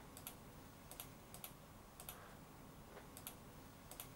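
Faint clicks of a computer mouse button, scattered and often in quick pairs, as points of an outline curve are placed.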